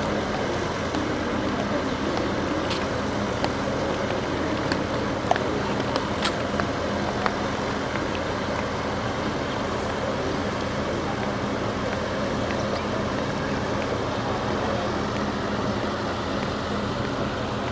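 Steady engine noise with a low hum, a few faint clicks between about three and seven seconds in.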